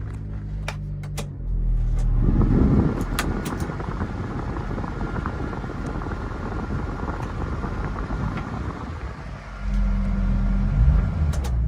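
Subaru Sambar kei truck's 660 cc engine running, its sound becoming louder and rougher for several seconds in the middle before settling back to a steadier run. A few sharp clicks at the start.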